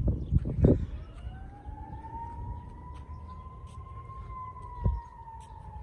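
A distant siren wailing: one long tone that rises slowly for about three seconds, then slowly falls. Under it is low rumbling, with a few thumps in the first second and another thump near five seconds.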